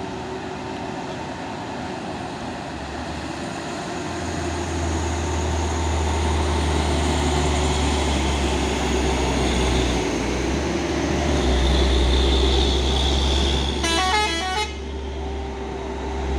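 A heavy truck's engine labouring under load on a steep climb, its revs building from about four seconds in. Near the end comes a short burst of quickly changing horn tones.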